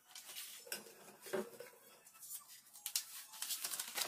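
Faint rustling and light clicks of a sheet of paper being picked up and held out.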